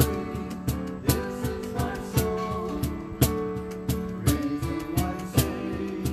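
Live worship band playing a slow song: singing voices with vibrato over guitar and keyboard, with a steady beat about once a second.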